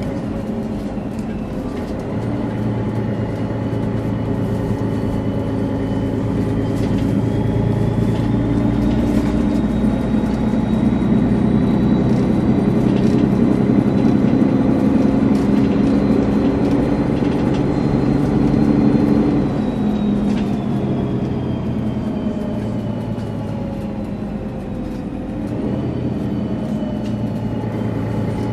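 Mercedes-Benz O530G Citaro articulated bus's diesel engine running under way, with a high turbocharger whistle over it. The whistle rises in pitch as the bus pulls, holds, falls away about twenty seconds in, and rises again near the end.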